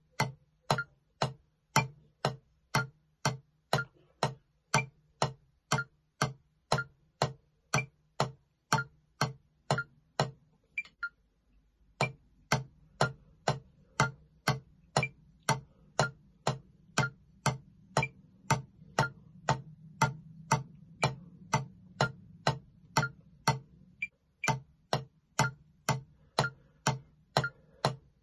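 Metronome click set to 60 BPM, ticking evenly about twice a second, with a break of about a second and a half near the middle.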